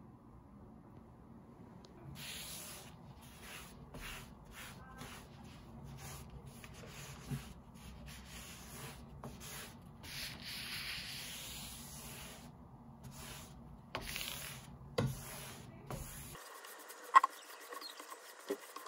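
A cloth wipe rubbing back and forth across a desktop, a long run of rubbing strokes with short pauses between them. A few sharp knocks fall in among the strokes, the loudest near the end.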